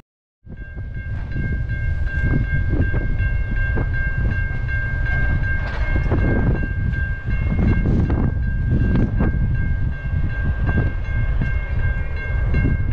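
Level-crossing warning bell ringing steadily as the crossing activates for an oncoming train, over a strong low rumble with irregular thuds. The sound starts about half a second in.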